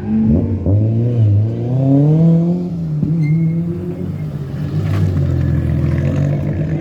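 A rally car's engine under hard acceleration. There is a quick blip right at the start, then the revs climb steadily, drop sharply at a gear change about three seconds in, and run on at a steadier pitch.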